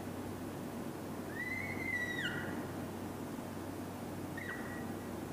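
Felt-tip marker squeaking on a whiteboard as straight lines are drawn: one long squeak about a second and a half in that dips in pitch as the stroke ends, then a short squeak near the end. A steady low hum runs underneath.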